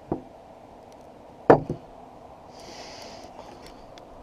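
Hand tools and light-fixture parts being handled on a wooden tabletop: a few sharp knocks, the loudest about a second and a half in with another just after, then a brief rustle near three seconds.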